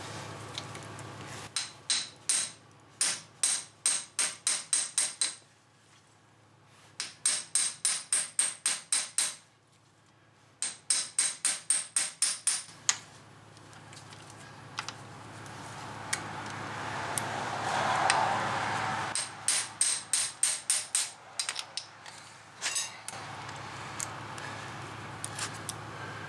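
A steel hammer taps on a tool at a car's front wheel hub in quick runs of about four sharp, ringing metal strikes a second, with pauses between the runs. Around two-thirds of the way through, a rasping noise swells up between the runs.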